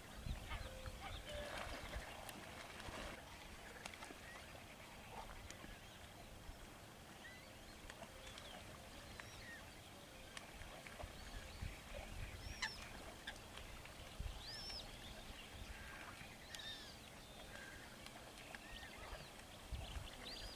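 A flock of birds calling, faint, with short scattered cries, some rising and falling high in pitch, dotted through the whole stretch.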